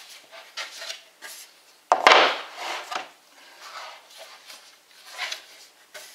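Black laminated wood bookcase panels being handled and shifted against one another: sliding and rubbing of board on board, with a sharp wooden knock about two seconds in as a panel is set down, the loudest sound.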